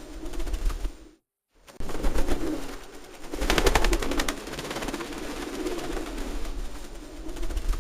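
Pigeons cooing: repeated low, rolling coos, with a burst of rapid clicks about halfway through. The sound cuts out completely for about half a second a little over a second in.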